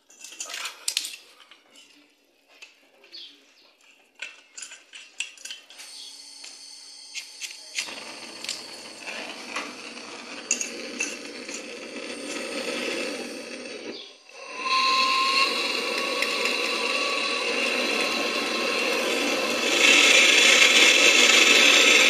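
Scattered handling clicks and knocks, then a MAPP gas hand torch burning with a steady hiss from about eight seconds in, heating a copper pipe joint for brazing. The hiss drops out briefly near fourteen seconds, comes back louder, and grows louder again near twenty seconds.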